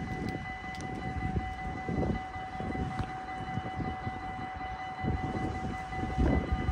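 Dutch AHOB level crossing warning bells ringing steadily while the crossing is still active, over a low rumble; part of the ringing stops about six seconds in.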